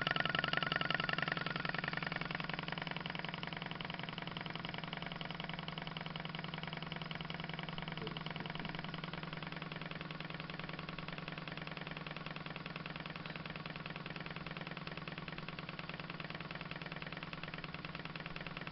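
Solar Engines Sun Runner hot-air Stirling engine running at a steady speed with a fast, even mechanical beat. It is a little louder over the first couple of seconds, then settles.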